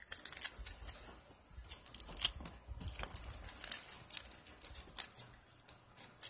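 Packaging and plastic card sleeves being handled: irregular short crinkles and ticks.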